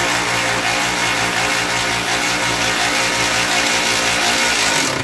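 Background music with guitar, loud and dense, cutting off abruptly at the very end.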